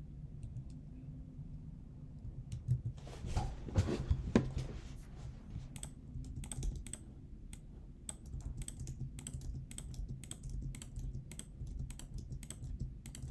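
Typing and clicking on a computer keyboard: quick runs of key presses from about halfway in, over a low steady hum. A few seconds in there is a louder muffled knock.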